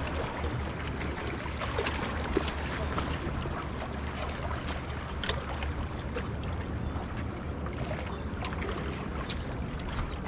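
Wind rumbling on the microphone while small waves lap and splash against the jetty's rocks, with scattered little splashes and clicks over a steady wash.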